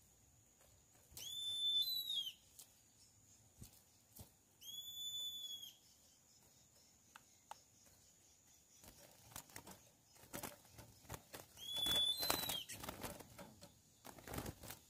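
Curió (chestnut-bellied seed finch) giving three clear, drawn-out whistled notes, each about a second long. From about nine seconds in, wings flutter and small ticks sound as a bird lands and scrabbles on the wire trap cage.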